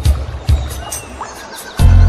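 Background music with a steady beat of light percussion and low drum thumps; deep bass notes and held chords come in near the end, making it louder.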